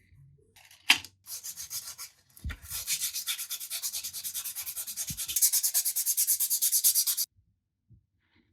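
Fast back-and-forth hand rubbing on the saber, several even strokes a second, like sanding or abrasive polishing. It follows a sharp knock about a second in, gets louder toward the end and stops abruptly.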